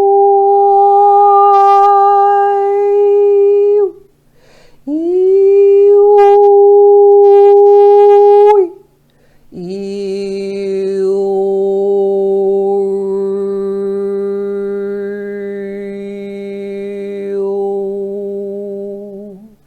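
A woman's voice toning a light language transmission: two long held notes of about four seconds each, then from about ten seconds a longer held tone with a lower drone an octave beneath it, its overtones shifting as the vowel changes.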